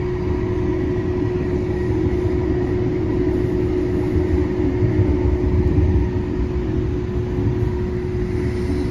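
Light rail car running at speed, heard from inside the car: a steady low rumble of wheels on track with a constant hum over it.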